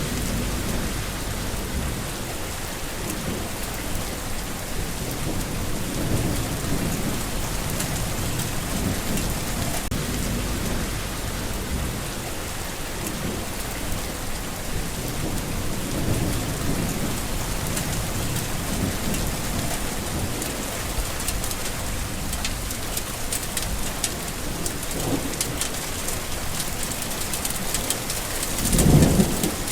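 Steady rain falling on surfaces, with low rolling thunder swelling and fading throughout. A louder rumble of thunder comes near the end.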